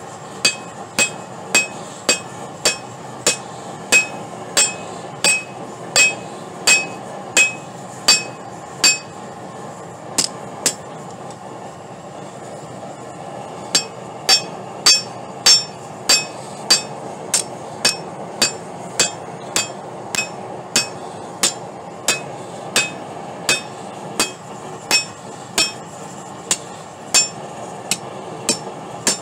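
Hand hammer forging steel rebar on a Doyle steel anvil: steady blows about three every two seconds, each with a short metallic ring. The blows stop for a few seconds in the middle, with two light taps, then carry on.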